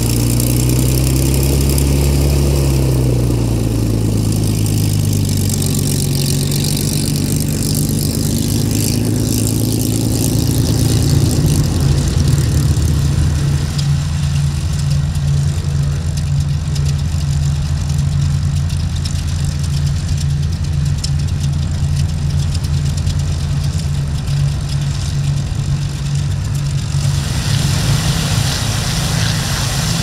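A WWII warbird's piston aero engine running close by. Its low note wavers up and down in pitch for the first ten seconds, then settles into a steady, pulsing run. A rushing hiss comes in near the end.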